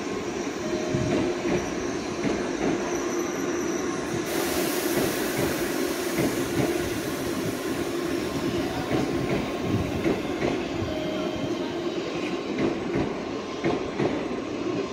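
Meitetsu electric train moving past the platform, its wheels clicking over rail joints, with a steady whine and some wheel squeal.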